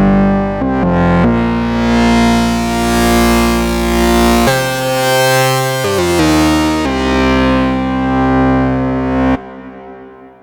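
Elektron Analog Four MK2 analog synthesizer playing a patch of long sustained notes with rich overtones. The notes move to new pitches several times, then stop abruptly about nine seconds in and leave a short fading tail.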